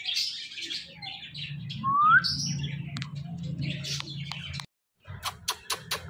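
Indian ringneck parakeet chirping and chattering, with one short rising whistle about two seconds in. Near the end the sound breaks off briefly and a rapid run of sharp, even clicks begins.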